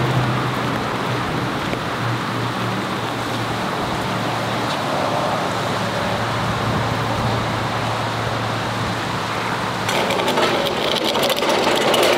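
A steady motor hum runs under the scene; about ten seconds in, a loud metallic rattling starts as a car tow dolly is pulled and rolled over the pavement.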